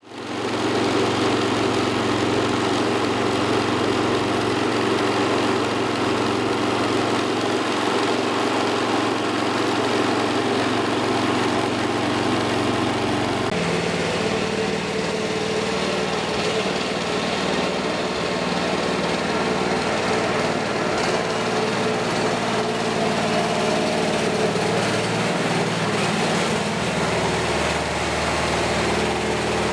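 Cub Cadet 1450 garden tractor's Kohler single-cylinder engine running steadily; its note changes suddenly about halfway through.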